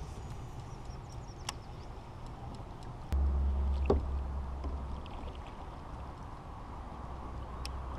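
Fishing kayak on the water: a low rumble with a few light clicks and a knock. The rumble jumps louder about three seconds in and eases off over the next two seconds.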